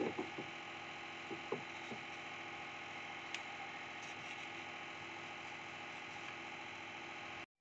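A steady machine hum made of many tones, with a few soft knocks from a wooden rolling pin working dough on a board in the first two seconds. The hum cuts off abruptly just before the end.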